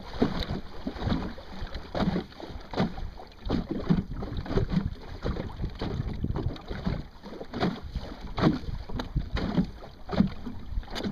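Flat-bottomed Puddle Duck Racer sailboat's hull slapping and splashing through wind-driven chop, irregular knocks several times a second, with wind buffeting the microphone.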